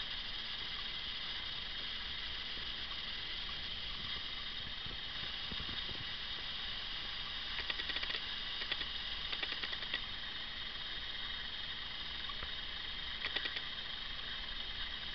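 Steady hiss of a camera's microphone and recording noise with no speech, broken by a few brief clusters of faint crackles about halfway through and again near the end.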